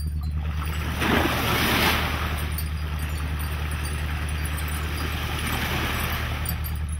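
Sea water rushing and splashing along a moving ship's hull over a steady low engine drone, with a louder surge of spray about a second in.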